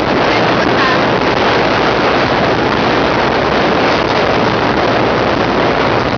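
Wind buffeting the microphone on a moving motorized outrigger boat, with the boat's engine running steadily underneath and water rushing past the hull.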